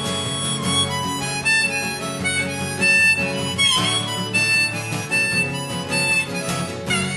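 Harmonica playing a melody of held notes, with a few notes bent, over acoustic guitar: an instrumental break in a folk song.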